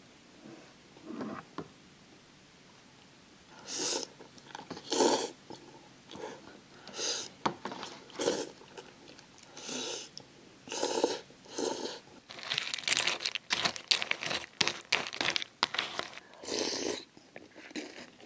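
Close-miked eating of instant cup noodles: a series of short slurps and chewing, with a longer crackly run of slurping about two-thirds of the way through.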